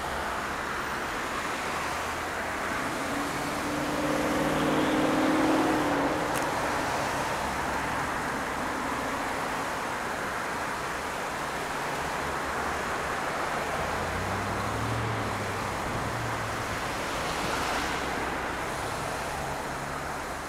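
City road traffic: cars driving through an intersection, with steady road noise. A passing car's engine is loudest about five seconds in, and another lower engine passes later.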